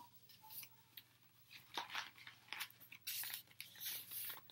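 Paper pages of a picture book rustling and crinkling as the book is handled, turned and held up open: a string of short papery rustles, thickest in the second half.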